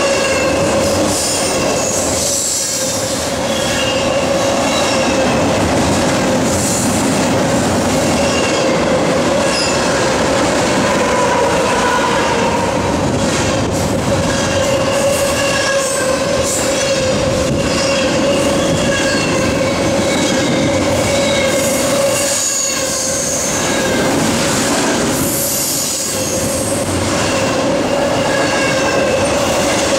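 Double-stack intermodal freight cars rolling past at close range, their steel wheels on the rails making a steady rumbling, rattling noise. A sustained wheel squeal rings throughout, with higher squealing tones coming and going.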